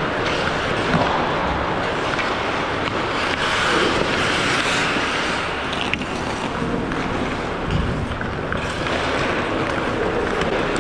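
Ice hockey play: steady scraping of skate blades on the ice, with a few sharp knocks.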